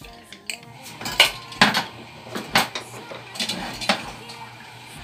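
Metal cookware clanking: a pressure-cooker lid and pots knocking against one another in a series of about five sharp metal knocks, the loudest about a second in.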